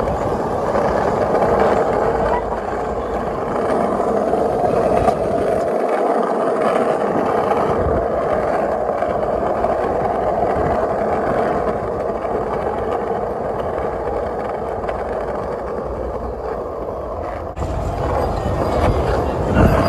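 Skate wheels rolling steadily over street pavement, a continuous gritty rumble.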